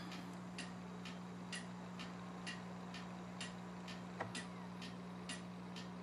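Regular light ticking, about two ticks a second, over a steady low electrical hum.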